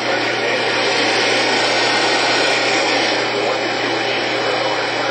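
Steady radio static: a loud, even hiss from a weather radio receiver with no broadcast signal coming through, over a faint low hum.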